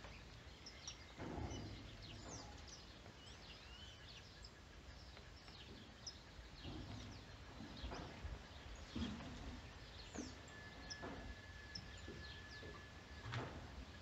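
Faint outdoor ambience of birds chirping and twittering, with a few soft knocks and, near the end, a thin steady tone held for about three seconds.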